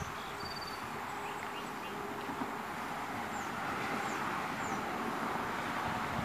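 Steady outdoor background noise, a little louder towards the end, with a few faint, short high chirps.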